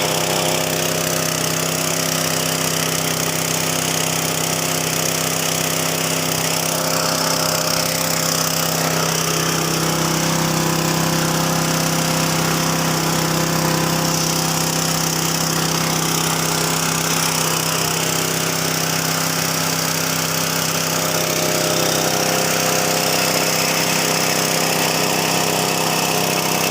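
Engine-driven rice and corn milling machine running steadily, a constant mechanical hum and rattle; its low tone grows fuller for a stretch in the middle.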